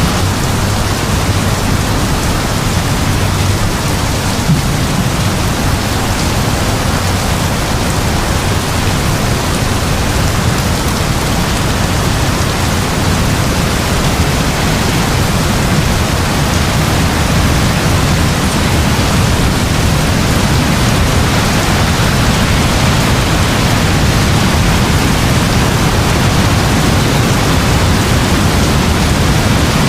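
Heavy rain falling: a steady, dense hiss with a low rumble underneath and no distinct thunderclaps.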